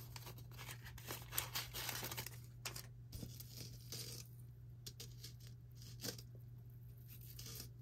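Costume jewelry being handled and sorted: faint rustling and light metal clicks, busy for the first couple of seconds, then a few scattered taps, over a steady low hum.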